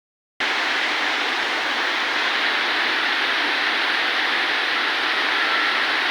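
Rain falling steadily: an even hiss that starts abruptly about half a second in and holds without change.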